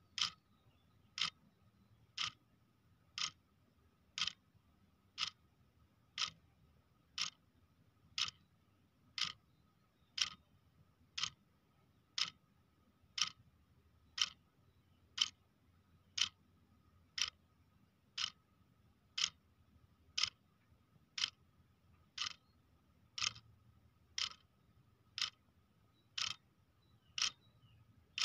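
Clock ticking steadily, one sharp tick about every second, with a faint steady whine in the background.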